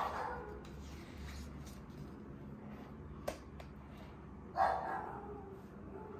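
A dog barks twice, once at the start and again about four and a half seconds later, over a low steady hum. A single short tick comes between the two barks.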